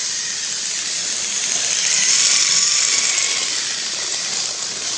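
Battery-powered toy train motor whirring steadily as it runs along the track, swelling a little about two seconds in.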